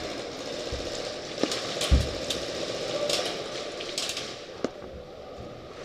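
A few scattered sharp cracks of airsoft guns firing, spread over several seconds, over a steady background hiss.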